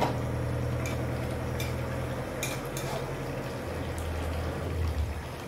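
A metal spatula stirring a thick curry in a wok, with a handful of short scrapes and clinks against the pan, over a steady low hum.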